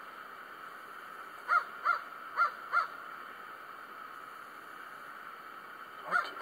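Crow cawing: four harsh caws in quick succession about one and a half seconds in, then more caws starting near the end, over a steady background hiss.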